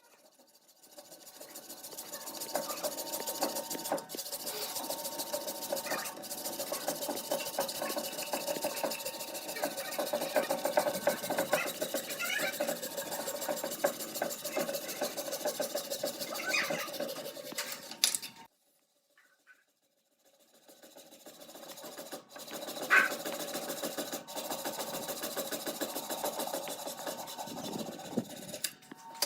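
Rough, continuous rasping of wood being abraded by a woodworking tool, in two long stretches. It stops abruptly about eighteen seconds in and fades back in a couple of seconds later, with one sharp knock about twenty-three seconds in.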